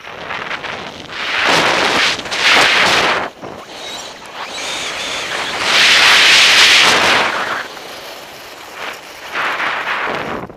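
Skis hissing and scraping over groomed, packed snow in a run of turns, each turn a surge of noise lasting a second or two, the longest and loudest about halfway through, with wind on the microphone.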